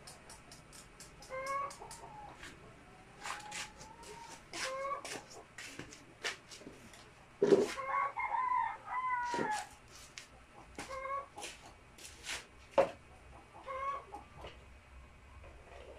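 A rooster crows once, about halfway through, for about two seconds. Short repeated clucking calls from chickens come every few seconds, mixed with scattered sharp clicks and taps.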